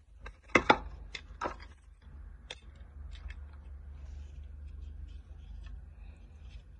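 Packaging of a die-cast model car being handled while it is unboxed: a few sharp plastic clicks in the first couple of seconds, then faint rustling and ticks over a low steady hum.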